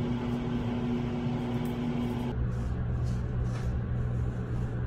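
A steady machine hum, like a fan, with a couple of steady tones in it. A little over two seconds in it switches abruptly to a lower, duller hum with less hiss.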